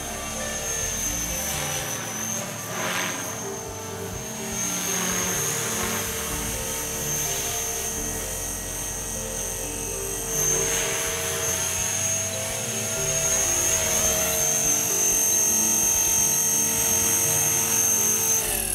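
Blade 450 3D electric RC helicopter in flight: the steady high whine of its motor with the hum of the spinning rotor, shifting slightly in pitch as the pilot works the throttle, and louder from about ten seconds in as it comes low over the grass.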